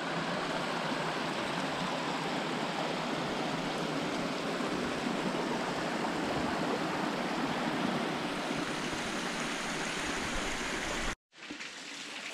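Small rocky creek spilling over a cascade into a pool: a steady rush and splash of running water. It cuts off abruptly about eleven seconds in.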